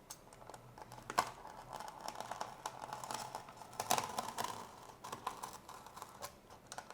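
Craft knife blade cutting through a foam wing to separate the aileron: a run of small scratchy clicks and crackles, with a sharper click about a second in and a louder stretch around four seconds.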